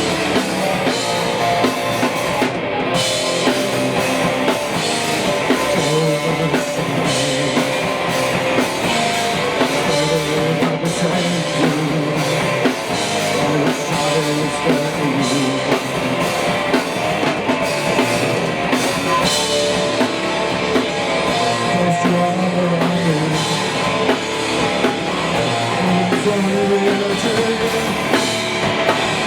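Rock band playing an instrumental stretch: drum kit and electric guitar, loud and continuous.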